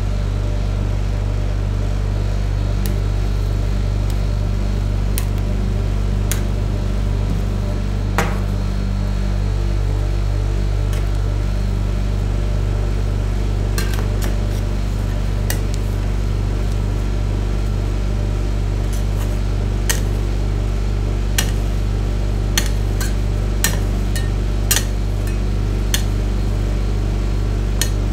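Steady electrical hum of a rolled-ice-cream cold-plate machine's refrigeration unit, with metal scraper spatulas clicking and scraping against the frozen steel plate. There are a few scattered clicks, then a quick run of sharp metal taps near the end.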